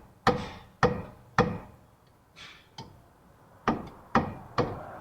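Hammer blows on metal suspension parts: three strikes about half a second apart, a pause, then three more, each with a short metallic ring.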